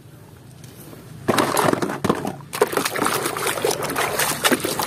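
Muddy water sloshing and splashing in a plastic basin as a toy crocodile is scrubbed in it by hand, starting about a second in and going on with a brief lull midway.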